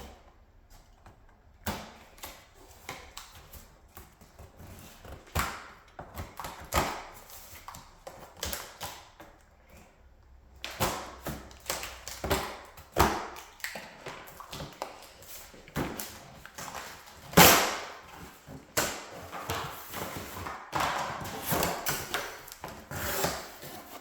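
Unboxing a mechanics tool set: irregular rustling, scraping and knocks as the box and packaging are opened and the case is handled, with one louder knock about two-thirds of the way through.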